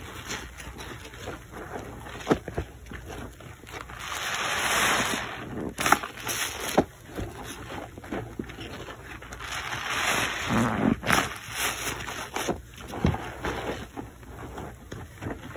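A soap-soaked sponge squeezed and plunged in a sink of foamy water: wet squelching and splashing with sharp slaps, and two longer swells of sloshing water about four and ten seconds in.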